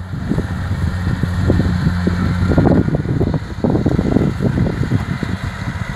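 Kubota DC-70 rice combine harvester's diesel engine running steadily under harvesting load, a constant low hum. Uneven low buffeting over it is loudest between about two and five seconds in.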